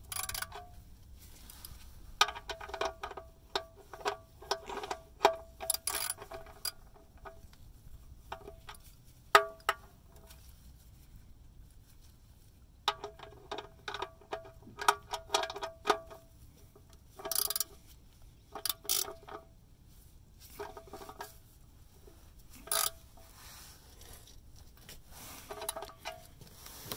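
Hand ratchet and socket clicking in bursts as it runs the oil drain plug back into the oil pan, snugging it only hand tight. Several runs of quick pawl clicks, each with a slight metallic ring, separated by short pauses.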